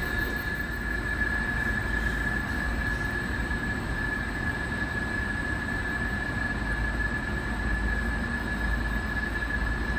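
Steady mechanical hum of a parking garage, a constant high whine over a low rumble, with no distinct knocks or changes.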